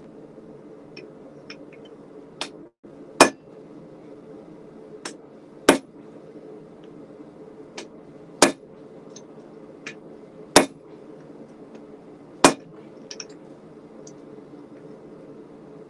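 Hand hammer blows on a glowing bar of A2 tool steel on a steel anvil, as the blacksmith works to cut it: five heavy, ringing strikes roughly two seconds apart, with lighter taps between them. A steady hiss from the propane forge's burner runs underneath.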